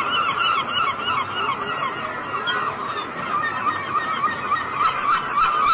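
A flock of gulls calling, many cries overlapping in a dense, unbroken chorus.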